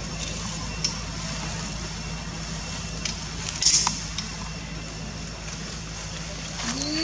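Steady outdoor background noise with a low hum, broken by a faint click about a second in and a brief, louder rustle a little past halfway.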